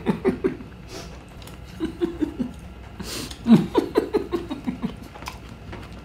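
A man chuckling with his mouth closed, 'nfu-fu-fu', in several short bursts of quick pulses, the loudest about three and a half seconds in.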